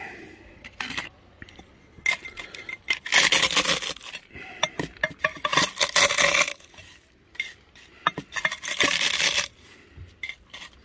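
Tortilla chips being crushed under an enamelware mug pressed and ground into an enamel bowl, in several bouts: crunching and scraping, with the metal ringing and clinking.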